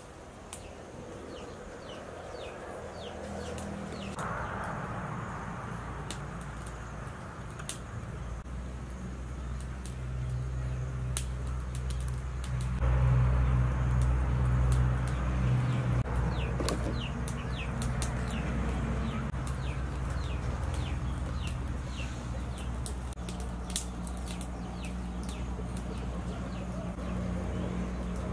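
Birds chirping in many short, falling notes over a steady low rumble, which is loudest about halfway through.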